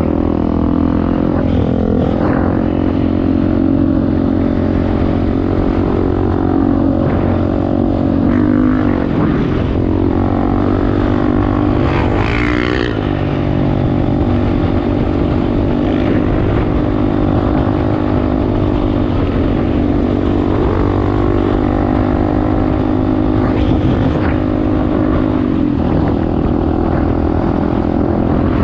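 Off-road motorcycle engine running under way, its revs rising and falling as it is ridden.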